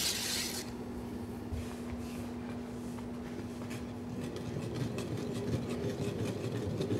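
Long wooden stick stirring thick cornmeal millas batter in a heavy cauldron, a soft continuous rubbing scrape as it is worked over and under to keep it from sticking. A steady low hum runs underneath and stops about six seconds in.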